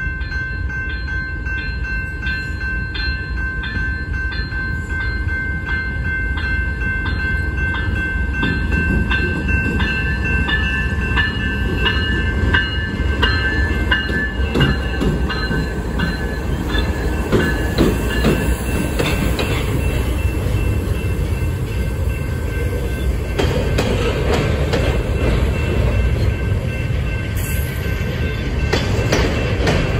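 BNSF diesel locomotives pulling a double-stack intermodal freight train pass close by, followed by container flatcars rolling past with rapid clicks of wheels over the rail. A grade-crossing bell rings in a steady, regular pulse through the first half and fades as the locomotives go by.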